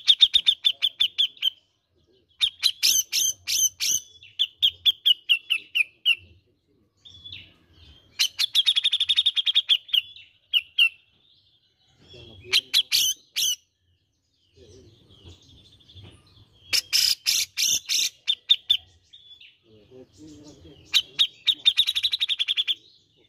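Caged grey-cheeked bulbul (cucak jenggot) singing: bouts of rapid, chattering repeated notes, each lasting a second or two, with short pauses between.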